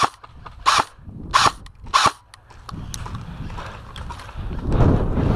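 Airsoft rifle firing four single shots, about two-thirds of a second apart. Then, from about halfway through, a growing rush of wind noise and movement on the microphone.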